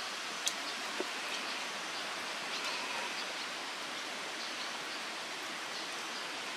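Steady rain falling on a pond and the grass around it: an even hiss, with a sharp tick about half a second in and a smaller one about a second in.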